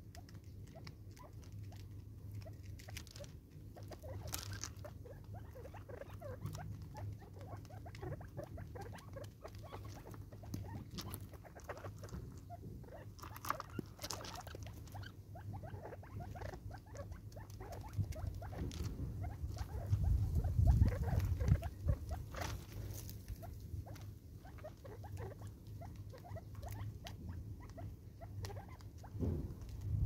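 Francolins pecking and scratching for food among loose gravel: a run of small, irregular taps and clicks over a low steady hum. A low rumble swells for a couple of seconds about two-thirds of the way through.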